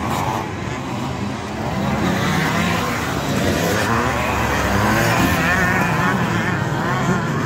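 Several motocross bikes racing round a dirt track, their engines revving and easing so that the pitch rises and falls. One bike passes close about six seconds in.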